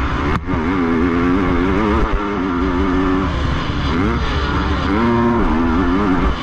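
Motocross bike engine revving up and down on a dirt track, its pitch rising and falling repeatedly, with a brief drop about half a second in. Wind rumble on the helmet-mounted camera runs underneath.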